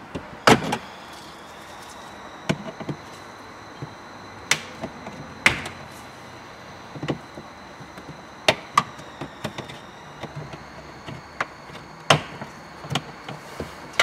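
Plastic retaining clips of a Honda Civic's centre-console side trim panel snapping and clicking as the panel is pried loose with a screwdriver: about a dozen sharp clicks at irregular intervals, one every second or so. A faint steady high whine runs underneath.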